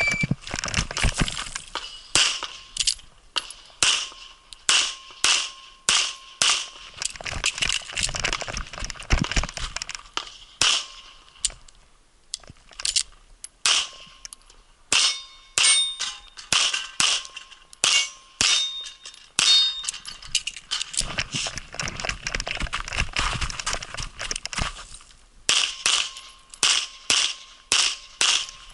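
Rapid pistol fire from a 1911-style pistol, shots coming in quick strings of two or more with short pauses between strings, as a practical-shooting stage is shot. Steel targets ring with a short clang when hit. A brief beep sounds right at the start.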